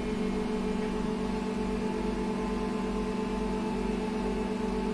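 Cabin sound of a SVARZ-MAZ-6275 trolleybus: a steady electrical hum with a higher steady tone over an even hiss.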